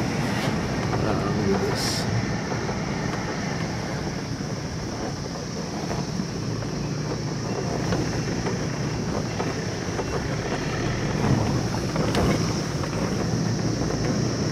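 Steady engine and road noise from inside a moving vehicle's cabin on a rough, partly unpaved road, with a couple of faint clicks.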